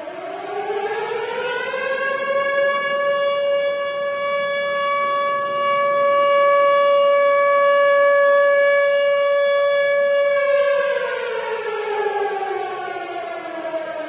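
Tornado warning siren winding up in pitch over the first couple of seconds, holding one steady wail, then winding back down over the last few seconds. It is loudest while the tone is held.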